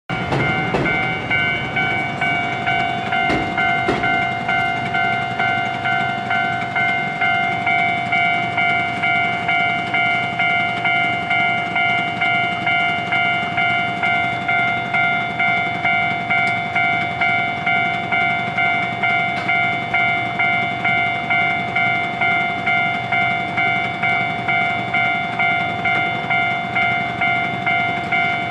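Japanese railway level-crossing alarm ringing, an even electronic ding repeated about one and a half times a second, warning of an approaching train. A few short knocks sound in the first seconds.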